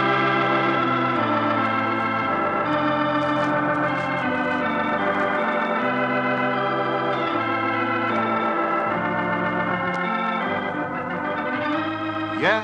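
Organ theme music: held chords over a low bass line, changing every second or so.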